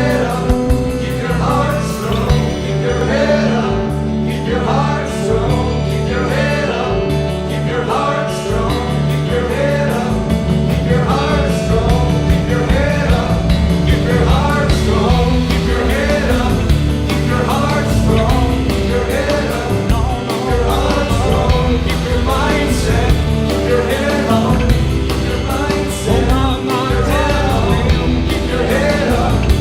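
Background music: a song with a singing voice over a full band accompaniment with a strong bass line.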